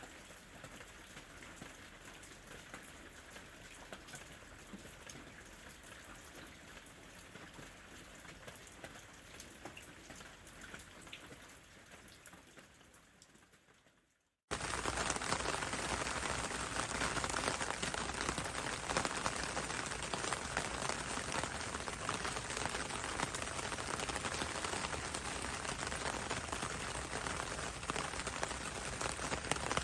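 Rain: a lighter patter of drops fades out about halfway through, and a much louder, denser downpour starts abruptly right after and holds steady.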